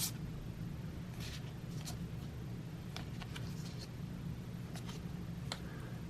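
Baseball trading cards being handled and flipped through: scattered short rustles and light clicks of card stock, over a steady low hum.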